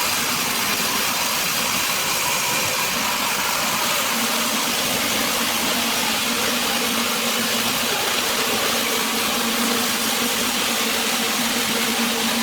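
Woodworking machine running steadily, an even mechanical noise with a faint steady hum coming in about four seconds in.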